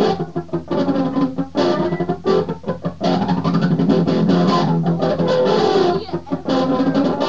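Electric guitar played through a foot-pedal effects unit: quick picked notes and chords, with the pitch wavering and sliding up and down through the middle.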